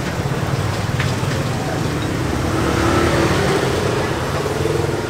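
A motor vehicle engine rumbling steadily, swelling to its loudest about three seconds in and then easing, like traffic passing close by.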